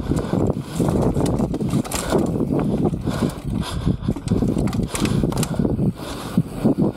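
Mountain bike riding fast down a dirt trail: a steady rumble of tyres on dirt, broken by many sharp rattles and knocks from the bike over rough ground.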